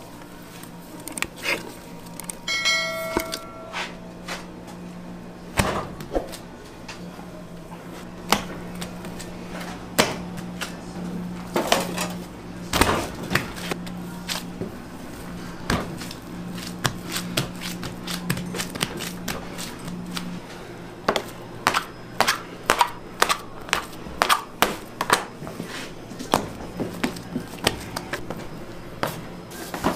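Bread dough being handled and kneaded on a stainless-steel work table: irregular knocks and slaps, coming faster in the second half, over a steady low machine hum. A brief electronic beep about three seconds in.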